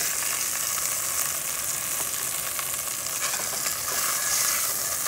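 Hot oil and meat juices sizzling steadily in a very hot Dutch oven as browned veal is lifted out with metal tongs, with a few clicks and scrapes of the tongs against the pot.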